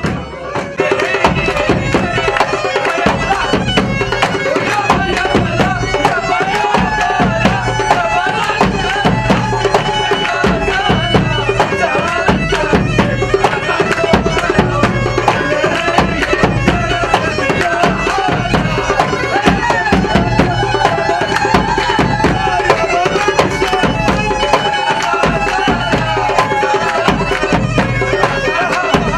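Loud traditional Arabic wedding dance music: a reedy, wavering wind-instrument melody over a fast, steady hand-drum beat. It gets louder about a second in.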